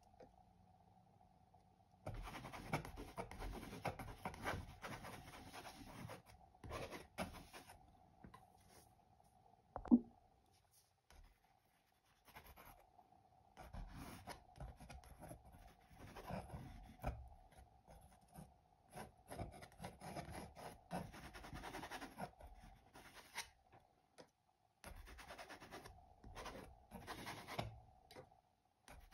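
Metal palette knife scraping and smearing thick paint in runs of short strokes, mixing on the palette and spreading it across a stretched canvas. A single sharp tap comes about a third of the way in, over a faint steady hum.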